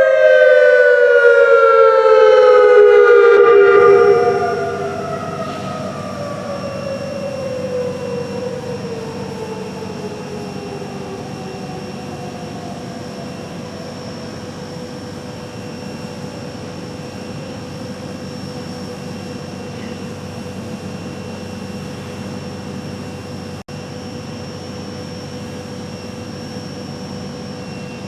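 Federal Signal Modulator 3012 outdoor warning siren winding down at the end of its dual-tone attack signal. Two tones fall together in pitch, drop sharply in level about four seconds in, and fade out over the next several seconds into a steady background hum.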